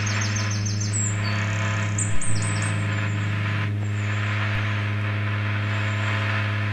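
A steady low buzzing hum with a hiss over it and short, high, falling chirps repeating on top, with a brief blip about two seconds in.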